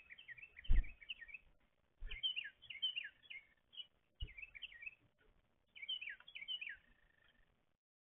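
Small songbirds calling at a feeder: four quick bursts of chattering, slurred chirps, with short pauses between them. Low thumps come about a second in, at two seconds and at about four seconds; the first is the loudest sound.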